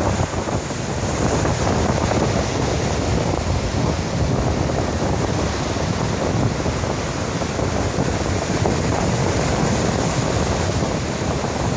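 Surf breaking on a beach in a steady, continuous wash of waves, with wind buffeting the microphone.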